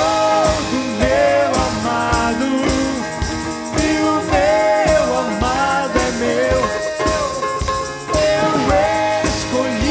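Worship music: a voice singing a gliding melody over acoustic guitar and drums keeping a steady beat.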